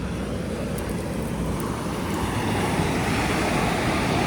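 Steady roar of ocean surf on a pebble beach, swelling a little in the second half, with low wind rumble on the microphone.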